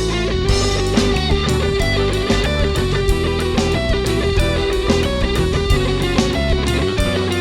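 Band playing an instrumental break in a song: guitar over bass and drum kit, with a steady beat of about two drum hits a second.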